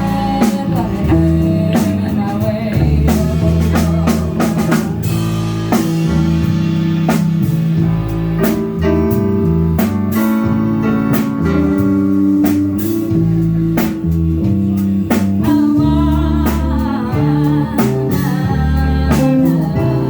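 Live band playing a song: held organ chords, guitar and a drum kit keeping a steady beat, with a singer.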